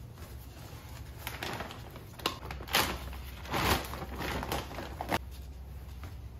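A plastic bag of ice-melt salt crinkling and tearing as it is ripped open by hand: a series of short rustles and rips, the loudest near the middle.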